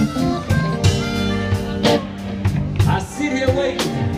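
Live blues band playing: electric guitar, bass and harmonica over a steady drum beat.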